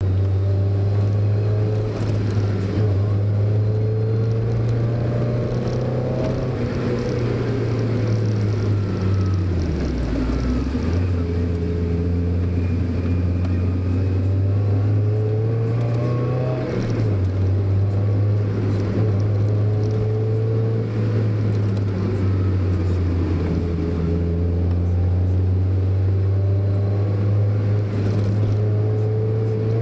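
Mazda Roadster's four-cylinder engine heard from on board while driving, its note rising and falling with the road. About a third of the way in the revs fall away, then climb steadily, and a little past halfway they drop suddenly, as at a gear change.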